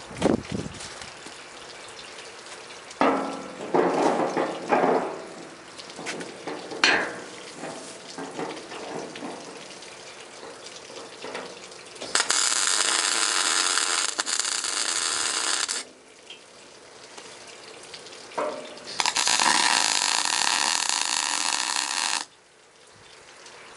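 Electric arc welder laying two welds on a steel snow pusher blade: two steady sizzling arcs of about three and a half seconds each, starting and stopping abruptly. Before them, steel clanks and scrapes as a piece of steel is set against the blade.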